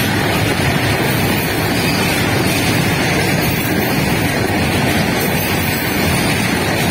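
Freight train of covered goods wagons rolling past, a loud, steady rumble of wheels on the rails.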